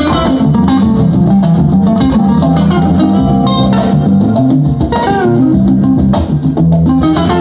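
Music playing steadily: a band led by guitar over a bass line.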